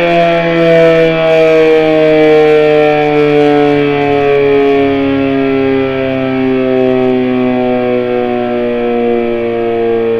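Sentry 7V8 outdoor warning siren sounding loudly as it winds down, its several tones falling slowly and steadily in pitch.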